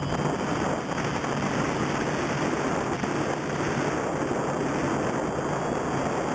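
TBS Discovery quadcopter's electric motors and propellers buzzing, heard through its onboard camera, with a heavy wind rush over the microphone in fast forward flight. A faint high motor whine drifts slightly in pitch.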